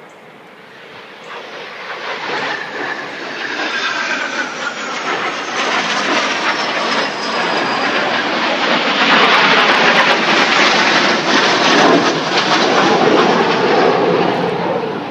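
Jet noise from a formation of Dassault/Dornier Alpha Jet trainers passing overhead. It builds steadily, with falling whine tones a few seconds in, and is loudest over the last few seconds.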